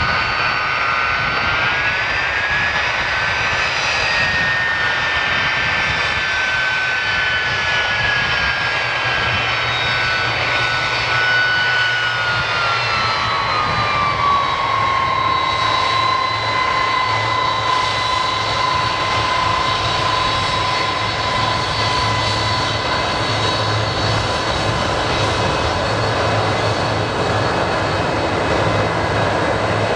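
Boeing 747-200 freighter's four jet engines running at high power as it rolls down the runway on its takeoff run: continuous jet noise with a high whine. The whine rises a little about two seconds in, drops in pitch between about twelve and fifteen seconds, then holds steady.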